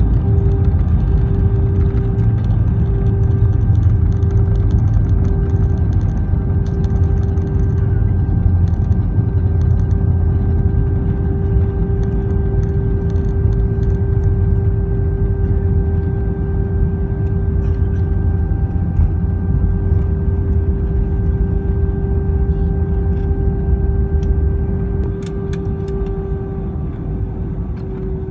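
Airbus A320 cabin noise on the ground just after landing: steady engine hum over a deep rumble, with a steady whining tone that comes and goes in the first few seconds and then holds. The sound eases a little near the end.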